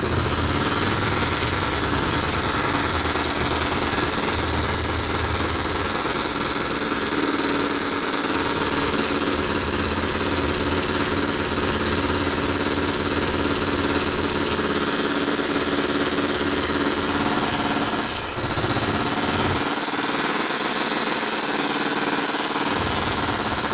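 Enjomor single-cylinder hit-and-miss model engine running fast with a rapid, steady firing chatter. Its governor is not yet working, so it keeps firing instead of hitting and missing. The sound dips briefly once, about three-quarters of the way through.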